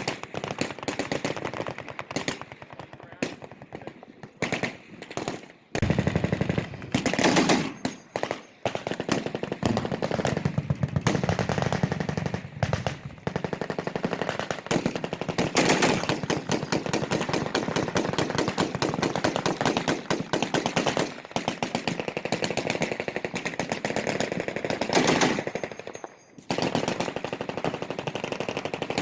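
Automatic gunfire from machine guns on a firing line: short separate bursts at first, then from about six seconds in near-continuous rapid fire from overlapping guns, with one brief break near the end.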